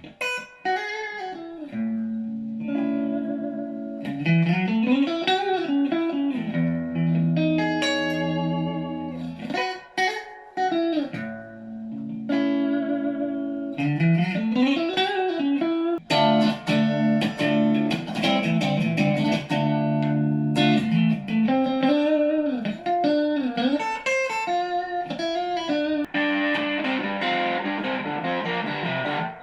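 Electric guitar played through a Fender Frontman Reverb amp and effects pedals: held notes and chords, with notes bent up and back down several times. In the last few seconds the tone turns brighter and denser.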